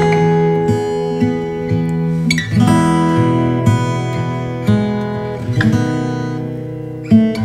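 Background music: acoustic guitar strumming chords, each left to ring for a second or more.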